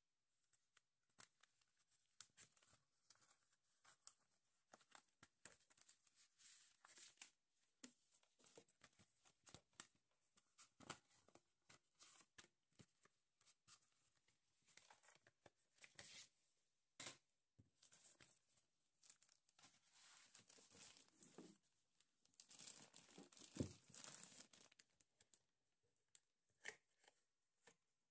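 Faint rustling and crinkling of tissue-paper and plastic packaging, with small clicks and knocks from the cardboard box being handled. The crinkling gets denser about three quarters of the way through, with one knock in it.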